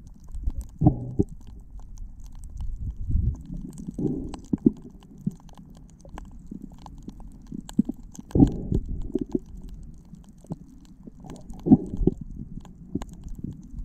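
Muffled underwater sound picked up by a submerged camera: a low rumbling wash of moving water, with small clicks and knocks and a louder gurgling surge every three to four seconds.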